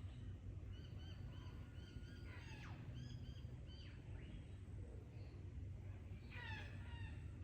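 Australian bush birds calling: short repeated chirps, quick falling whistles about two and a half seconds in, and a fast cascade of falling notes near the end. A steady low rumble of wind runs underneath.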